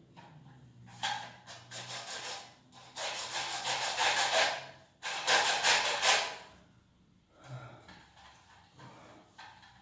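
Sawing through a toilet-tank part at a marked length: three loud rasping stretches of fast strokes, then fainter scraping near the end.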